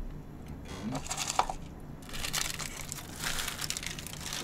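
Crinkling and crackling of an instant-noodle sachet's packaging as it is handled in the hands, irregular and papery-plastic.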